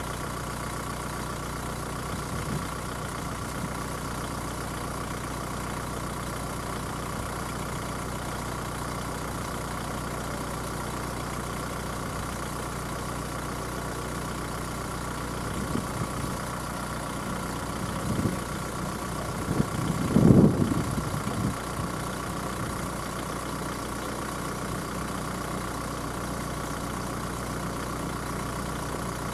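Level crossing's electronic warning signal sounding steadily while the barriers are down, over a car engine idling. A louder rumble swells briefly about twenty seconds in.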